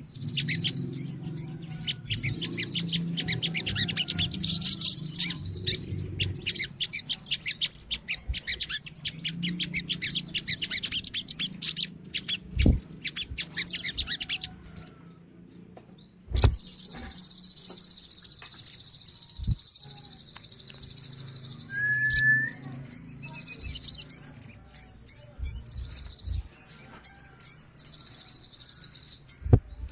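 Many sogon birds (a sunbird) chirping and trilling together in a dense, rapid, high chorus. It drops away for about two seconds near the middle and comes back just as full, with a few short knocks here and there.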